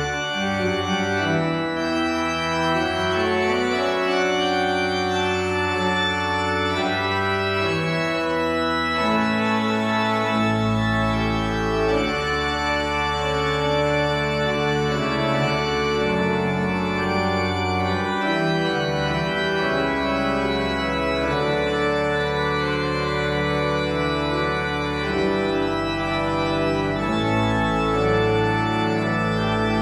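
Church organ playing the postlude after the benediction: slow, held chords over a bass line that steps to a new note every few seconds.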